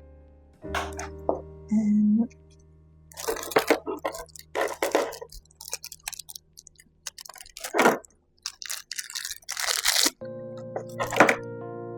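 Packaging crinkling and rustling in a string of short bursts as it is handled and opened, over soft background piano music that swells back in near the end.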